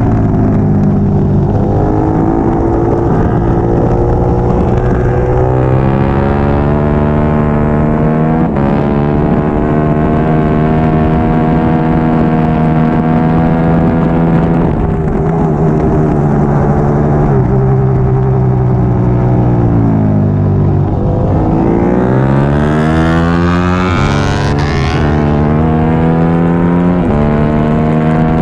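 Triumph Daytona 675R's inline-three engine at racing revs: the pitch climbs and drops back at each upshift, several times. Around twenty seconds in the revs fall under braking, then climb steeply on the drive out, and a second, higher engine note is heard briefly just after.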